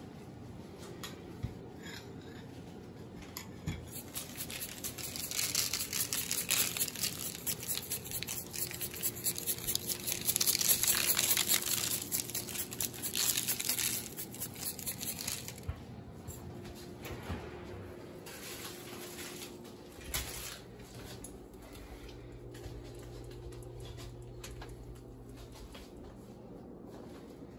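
Light pattering and crinkling as a dry topping is sprinkled over egg-washed bread knots on a parchment-lined baking sheet, starting about four seconds in and stopping about fourteen seconds in, loudest near the middle. Afterwards only a faint low hum remains.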